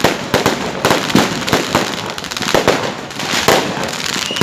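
A fireworks display going off in rapid, irregular succession: many sharp cracks and bangs each second, overlapping one another.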